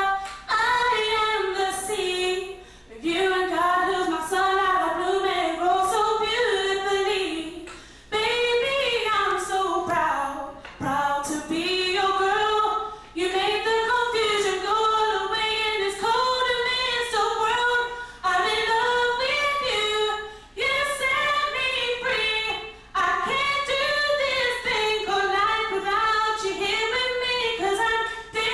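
A young female singer singing a love song a cappella into a handheld microphone, in long sustained phrases with sliding runs and short breaths between them.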